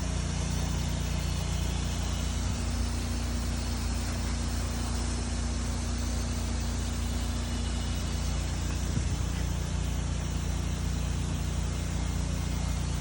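Pressure-washing rig's engine running steadily under the hiss of a spray of chemical pre-soak solution.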